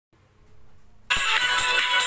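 Background music from a countdown video, sped up to nearly three times normal playback speed, starting abruptly about a second in after a quiet start.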